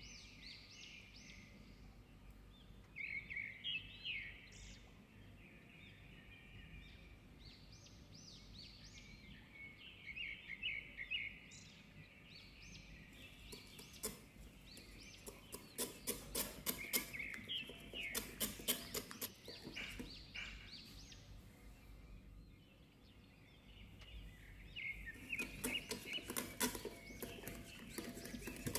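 A small wire whisk clicking rapidly against a glass bowl as it beats a thin sauce, in two spells, the second near the end. Birds chirp steadily in the background.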